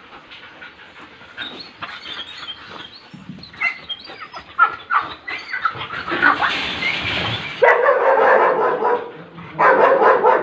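German Shepherd dogs barking and whining. Short, scattered sounds at first; from about three-quarters of the way through, louder and longer pitched calls.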